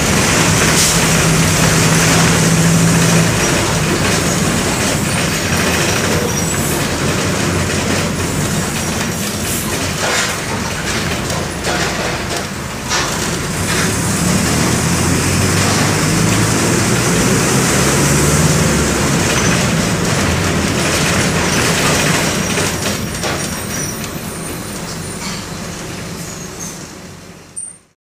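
Mercedes-Benz OM-924 LA four-cylinder inline diesel of an OF-1722M bus running under way, heard aboard the bus. The engine note falls after a few seconds and climbs again midway as the bus picks up speed, with scattered knocks and rattles, then fades out at the very end.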